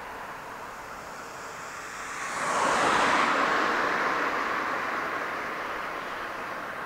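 A vehicle passing by: a rush of noise swells quickly about two and a half seconds in, then slowly fades away.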